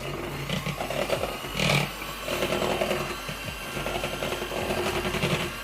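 Electric mixer running steadily, its beaters whisking butter and eggs in a bowl into a smooth batter.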